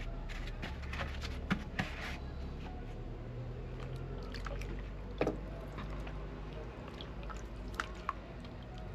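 Wet sloshing and squishing of a liquid börek mixture of milk and oil being poured and worked, with a few sharp clinks, over a low steady hum.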